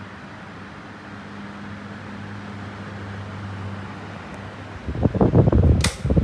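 Duoli 10-inch rotary box fan running, its motor giving a steady hum over the rush of air. About five seconds in, loud irregular gusts of wind buffet the microphone, with one sharp click among them.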